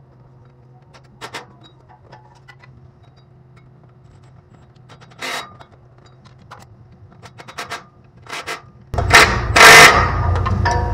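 Scattered light metallic clicks and knocks as a car's drive shaft is worked into place by hand. About nine seconds in, a sudden loud clattering and scraping of metal begins and keeps going.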